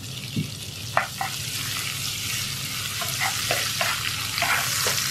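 Prawns, sliced onions and green chillies sizzling in hot oil in a frying pan. A wooden spatula stirs and scrapes against the pan several times, starting about a second in.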